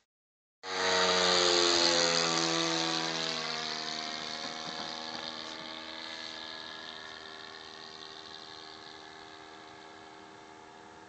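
Radio-controlled Hangar 9 Corsair model plane flying past: its motor and propeller drone starts loud, drops in pitch over a couple of seconds as it passes, then fades steadily as the plane flies away.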